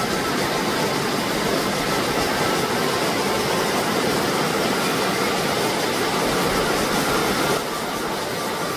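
Rushing water of a mountain stream, a steady full hiss that drops slightly in level near the end.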